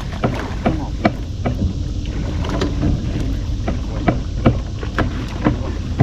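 Sharp knocks repeating at a fairly even pace, a little over two a second, over a steady low rumble.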